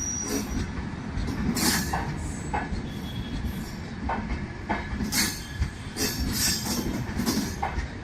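Humsafar Express passenger train rolling past with a steady rumble, its wheels clicking irregularly over rail joints and points, and brief high wheel squeals.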